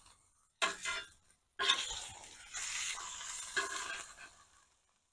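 Metal spatula scraping across the steel top of a Blackstone griddle, working under smash burgers to lift them off, with a hissing sizzle. There is a short scrape about half a second in, then a longer one lasting about three seconds.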